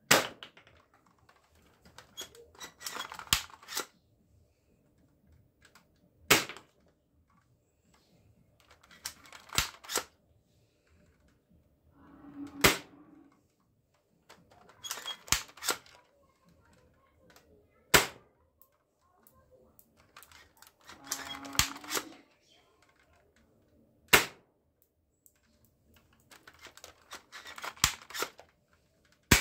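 Plastic toy rifle being cocked and fired over and over: a second or so of plastic clicking and rattling as it is loaded and cocked, then a sharp snap as it fires, about every six seconds.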